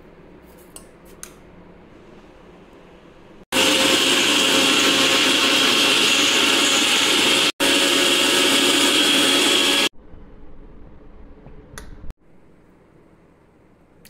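Electric blender or mixer grinder running at full speed, blending muskmelon for juice. It starts suddenly about three and a half seconds in and runs for about six seconds with a split-second break in the middle, followed by a quieter low rumble for about two seconds.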